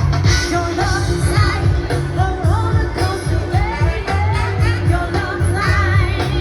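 Pop song with a sung vocal over a heavy bass line and a steady beat.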